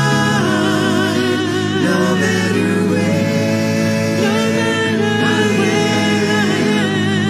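A small group of women singing a Christian song in harmony into microphones, holding long notes with vibrato.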